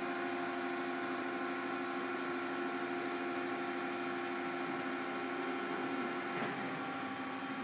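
Steady hum of a steel coil loading car and uncoiler, several steady tones over a hiss. One tone cuts off about six and a half seconds in.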